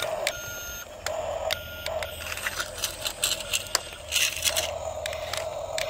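Toy remote-control excavator's small electric motors whirring as its upper body swings round on gravel, with short beeps and scattered clicks.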